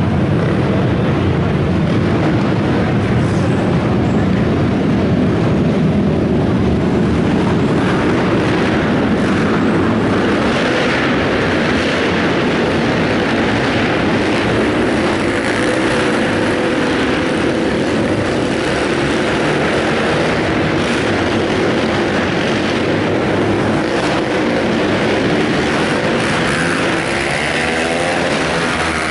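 Several racing quad ATVs' engines running hard at high revs around a dirt track, a dense, continuous engine noise. Near the end one engine's pitch rises and falls as it revs through a corner.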